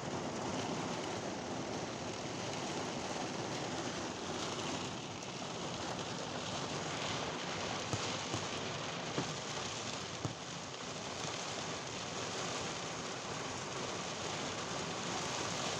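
Steady thunderstorm rain falling: an even hiss with a few louder drop hits around the middle.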